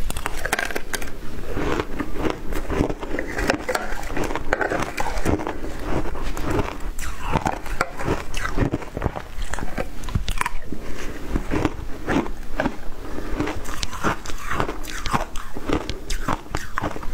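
Close-miked crunching and chewing of a mouthful of shaved ice: dense, irregular crackly crunches that run on without pause.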